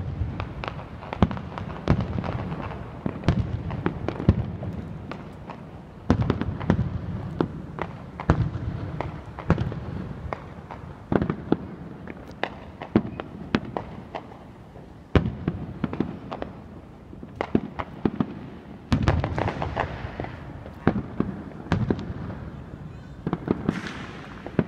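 Aerial fireworks shells bursting one after another: a continuous run of sharp bangs, some in quick clusters, with a low rumble rolling between them.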